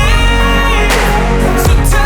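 Electronic pop music with a heavy bass and a steady drum beat.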